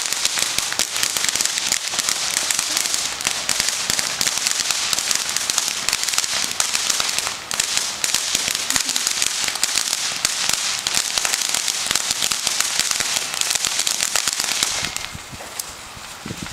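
Fireworks crackling: a dense, rapid, unbroken stream of small pops lasting about fifteen seconds, then dying down.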